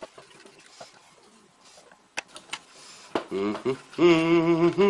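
Faint small clicks and taps of pliers working the nuts off a synth's front panel. About three seconds in, a man starts humming a wavering tune, which soon becomes much the loudest sound.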